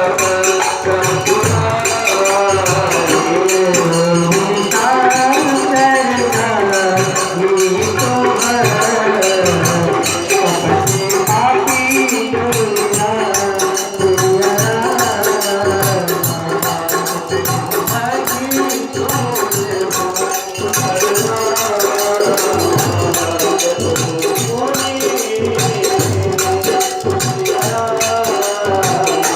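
Hindi devotional folk song: male voices singing a melody over steady jingling hand percussion.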